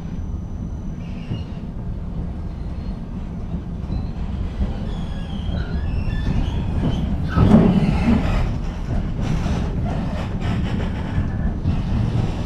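Tram running along street track, heard from inside the car: a steady low rumble of wheels and motors growing louder as it gathers speed, with faint high wheel squeals and a louder stretch about halfway through.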